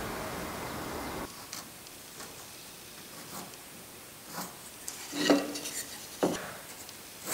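A steady noise for about the first second, then the light knocks and scrapes of a wooden dovetail marking block and a pencil being handled against a pine board, with a sharper knock a little past the middle.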